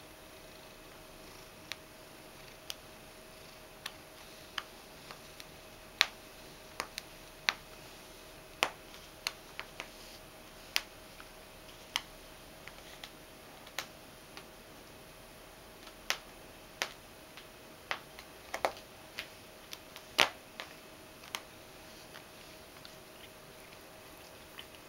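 Irregular sharp clicks and ticks, one or two a second, over a faint steady hum.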